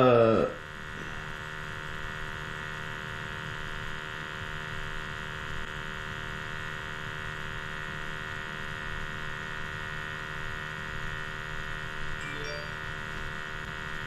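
A steady hum made of several held tones over a low background noise, unchanging throughout.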